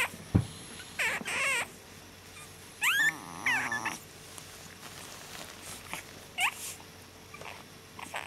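Basenji dog whimpering in short, rising squeaks, about four times with pauses between, and a soft thump just after the start.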